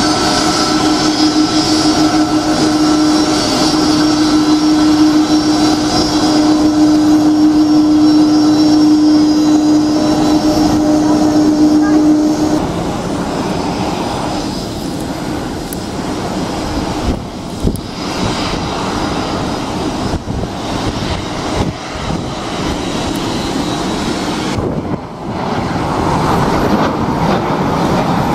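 Airliner jet engines: a taxiing Airbus A330 widebody running with a strong steady hum and higher whine for about twelve seconds. Then comes a quieter, rougher jet noise with a few sudden dips from Boeing 737-800s on the runway, swelling into a broad jet roar near the end as a 737-800 climbs out after takeoff.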